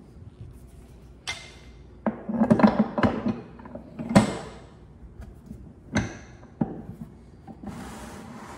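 The cast-iron crank and gear frame of a White Mountain hand-cranked ice cream freezer being handled and fitted onto its wooden tub: a series of sharp clunks and knocks of metal against wood, the loudest cluster a couple of seconds in, with a softer scraping near the end.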